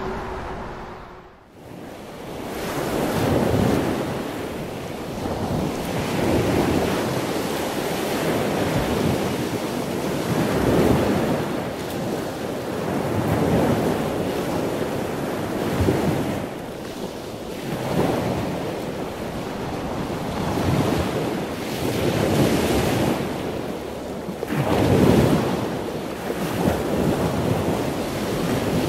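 Ocean surf washing in and out, a rushing noise that swells and fades about every three to four seconds. It comes in after a brief dip about a second and a half in.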